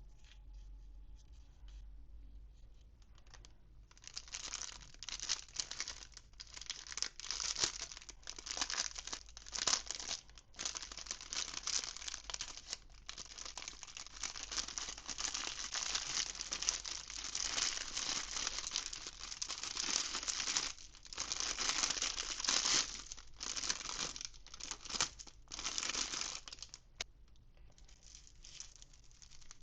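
Toy packaging being torn open and crinkled by hand, in crackly bursts with short pauses. It starts about four seconds in and dies down to faint rustling near the end.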